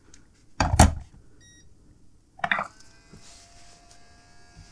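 Braun S9 cleaning station being switched on: a loud knock, a short electronic beep, then another knock as its pump starts and runs with a steady hum of several tones.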